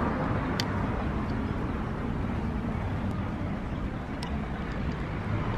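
Steady outdoor street noise, a distant traffic-like rumble and hiss, with two faint ticks.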